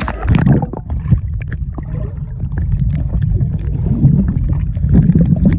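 Muffled sloshing and bubbling of seawater, heard through a phone microphone held under the surface. The sound turns suddenly loud and deep as the phone goes under at the start, with scattered small clicks.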